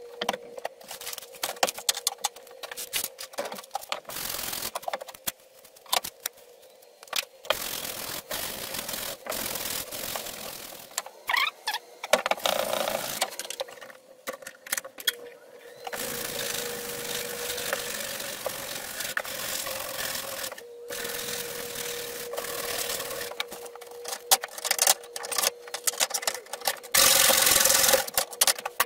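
Hand wire brush scrubbing rust off a steel double bit axe head clamped in a vise, in runs of scratchy strokes broken by short pauses, with a longer unbroken stretch in the middle and a louder run near the end.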